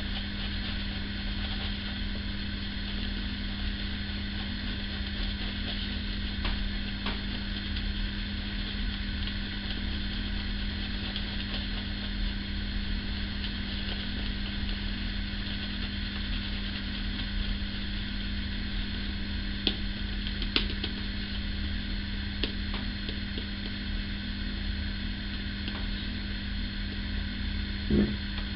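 Silvertip shaving brush whipping Speick shaving cream into lather in a bowl: a steady soft swishing over a constant electrical hum, with a few faint clicks.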